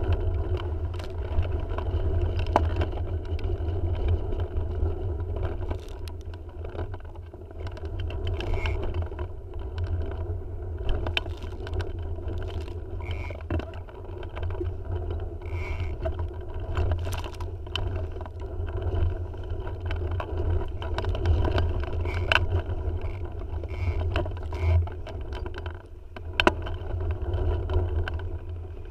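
Gusty wind buffeting the microphone and water rushing against the hull of a Tiwal 3 inflatable dinghy under sail: a steady low rumble broken by scattered sharp knocks.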